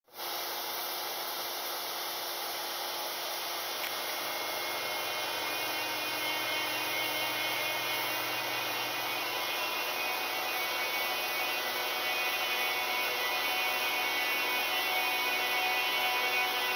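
Steady hissing noise of a milling cutter working wood, with faint steady whine tones in it, slowly growing a little louder.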